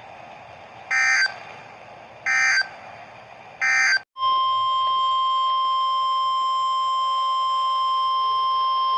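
NOAA Weather Radio emergency alert signalling: three short warbling bursts of SAME digital data, the end-of-message code that closes the warning. About four seconds in, a steady single-pitch 1050 Hz warning alarm tone begins and holds, marking the start of the next warning.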